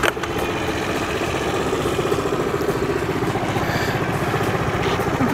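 Piaggio Typhoon 50cc scooter engine idling steadily.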